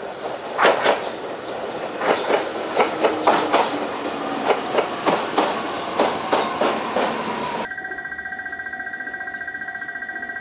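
A JR Kyushu 819 series DENCHA battery electric train passing close, its wheels clicking over the rail joints in a quick clickety-clack. About three-quarters of the way through, the sound cuts sharply to a level-crossing alarm ringing with a steady, rapidly pulsing tone.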